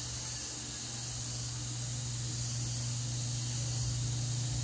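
Steady background hiss with a low, steady hum underneath and no distinct events: room and recording noise.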